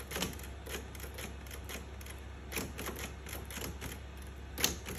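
Russian-made typewriter keys being pressed one at a time, each typebar springing up and striking with a sharp clack. The strokes come slowly and unevenly, and the loudest is near the end.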